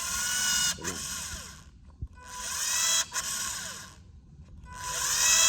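Makita cordless caulking gun's motor whining in three short runs at top speed, each rising in pitch and cutting out suddenly: the overload cut-off tripping because the plunger is pushing too fast against too much pressure.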